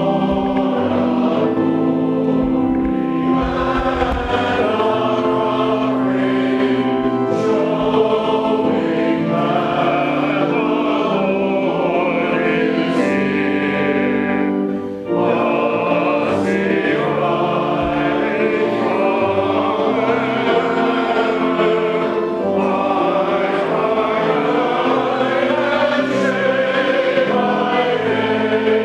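A choir singing in sustained, many-voiced chords, with a brief pause between phrases about halfway through.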